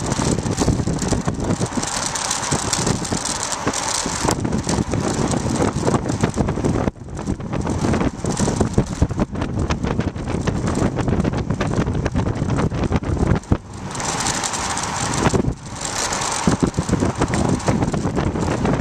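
Wind rushing over the microphone of a bicycle-mounted camera riding at speed, with a steady rumble of tyres on asphalt and the homemade mount rattling over bumps in the road. The rush eases for a moment a few times.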